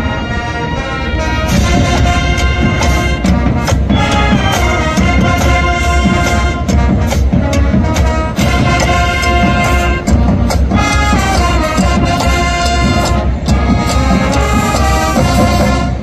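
College marching band playing on the field: brass section sounding full chords over frequent drum hits from the drumline.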